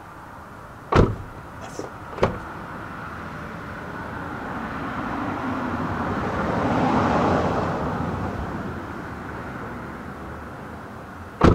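A car passing on the street: its noise swells over several seconds and then fades away. There is a sharp knock about a second in, a smaller one a little later, and a loud knock at the very end.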